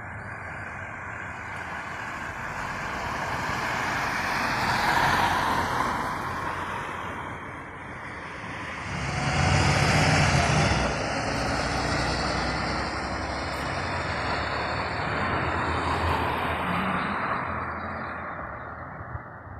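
A car goes by a few seconds in, then a city bus drives past close by about halfway through, its engine giving a deep rumble at the loudest point; steady road traffic continues after it.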